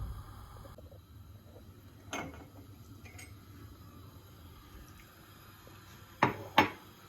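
Tableware being handled: a knock about two seconds in, faint ticks, then two sharp clinks close together near the end.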